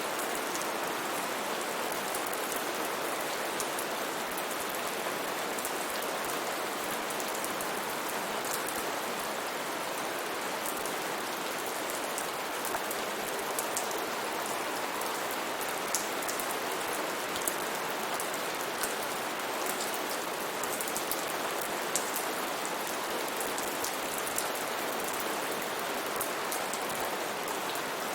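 Steady rain falling, an even hiss with scattered sharper drop ticks on a surface.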